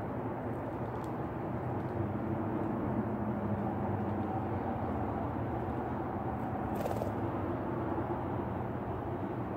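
Steady low outdoor background rumble with a faint hum, and one short hiss about seven seconds in.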